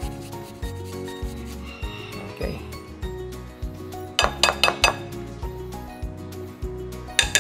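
Garlic rasping on a handheld fine grater over a glass bowl, then the grater tapped against the glass about five times in quick succession about four seconds in, clinking, with one more tap near the end. Background music with a steady beat runs underneath.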